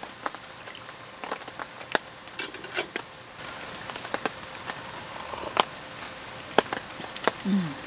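Rain at a campsite: irregular sharp drops ticking, a few each second, over a steady soft hiss of rain. Near the end comes a short low hum from a person's voice, falling in pitch.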